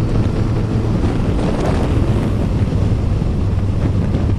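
Steady wind noise on the microphone of a motorcycle riding at road speed in the rain, with the engine and tyres on the wet road running underneath.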